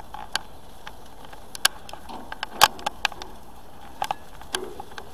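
Barbecued chicken sizzling on hot grill grates, with irregular sharp pops and crackles of spitting fat.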